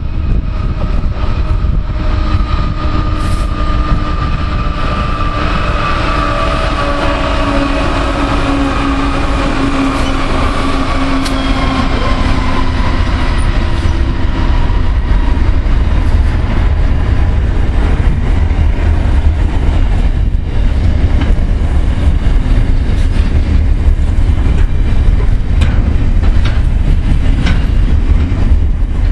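Pacific National NR class diesel-electric locomotives (GE Cv40-9i, V16 diesel engines) hauling a container freight train past. A heavy rumble runs throughout, and the engine tones fall in pitch as the locomotives go by. In the second half, clicks of the wagon wheels over the rails come through the rumble.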